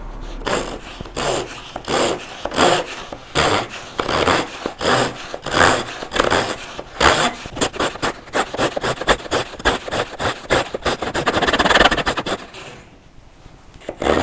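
Japanese hand saw rip-cutting into the end grain of a cedar stick, its blade sliding flat along a plywood guide block: steady back-and-forth strokes that quicken in the last few seconds, then stop about 13 seconds in as the cut is finished.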